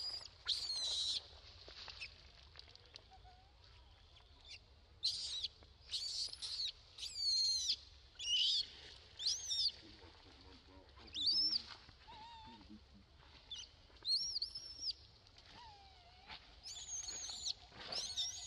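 Infant long-tailed macaque crying for its mother: a series of high, wavering squeals, each under a second long, coming in bunches a few seconds apart.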